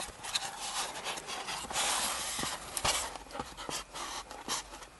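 Handling noise as a camera is set down beside a car's glove compartment: rustling with scattered small clicks and knocks, and a louder rush of rustling about two seconds in.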